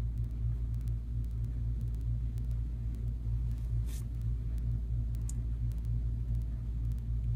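A steady low hum, with a brief soft hiss about four seconds in.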